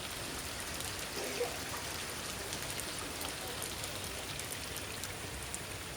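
Heavy rain falling steadily, a constant hiss of rain on surfaces.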